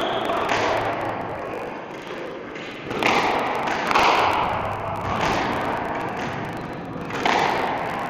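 Squash ball being struck by a racket and hitting the court walls: sharp thuds every second or two, each ringing on in the court's echo.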